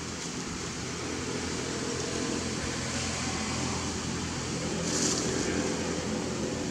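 Steady outdoor background noise with a low hum under it, and a brief hiss about five seconds in.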